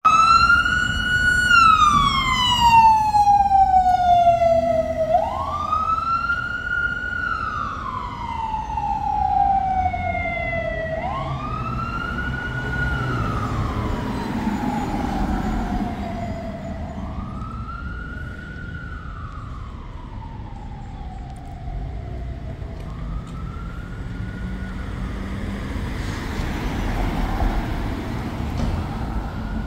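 Fire department siren on a slow wail: each cycle rises quickly and falls away over about five seconds, repeating and growing fainter as the vehicle moves off. Low traffic rumble underneath.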